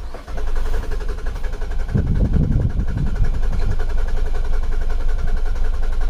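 2008 Nissan Quest's 3.5-litre V6 being cranked over on the starter motor, with a fast, even churning rhythm and no sign of catching: a crank-no-start. It begins just after the start.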